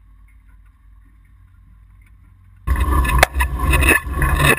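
Off-road vehicle driving over a rough gravel track: a faint low rumble at first, then, about two and a half seconds in, loud rumbling and crunching from the tyre and suspension, with several sharp knocks. The loud part is heard from right beside a front wheel.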